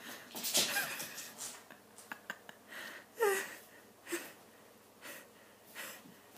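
Several short breathy exhales and snorts close to the microphone, like stifled laughter, one with a brief falling squeak about three seconds in, along with a few faint light clicks.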